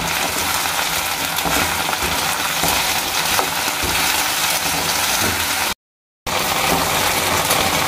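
Cut okra sizzling steadily as it fries in a little mustard oil in a wok. The sound breaks off completely for about half a second, about six seconds in.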